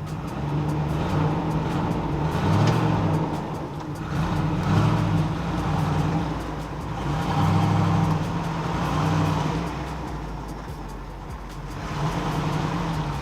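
Box truck engine running while driving, its pitch and loudness rising and falling with the throttle.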